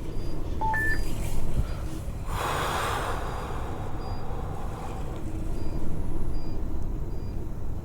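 Semi-truck idling with a steady low rumble. Two short beeps sound about a second in, and a short hiss comes a couple of seconds in.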